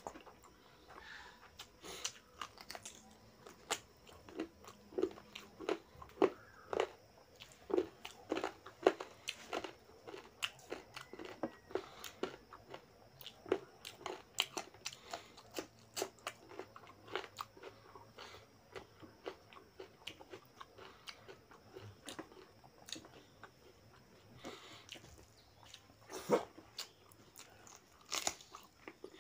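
Close-up chewing and biting as a man eats rice and mutton curry by hand: a run of short, irregular wet mouth clicks, with crunchy bites of raw cucumber slice.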